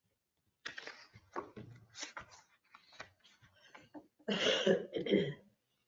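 Faint scattered clicks and rustles, then a person coughs twice in quick succession near the end.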